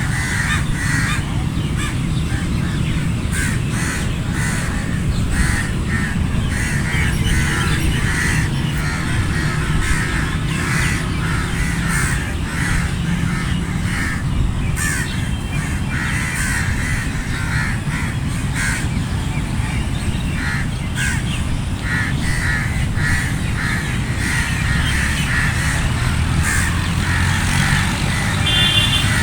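A flock of crows cawing over and over, many short calls overlapping, over a steady low rumble.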